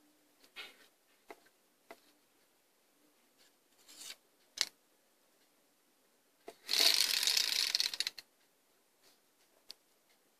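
Plastic flappers of a homemade cardboard prize wheel ticking against the pins on its rim: scattered single clicks, then a loud run of rapid clicking lasting about a second and a half about two-thirds of the way in.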